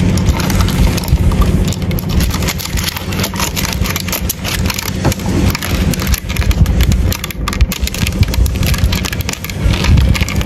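Dense scratching and clicking of stag beetles' claws and jaws on bark, close to the microphone, over a steady low rumble.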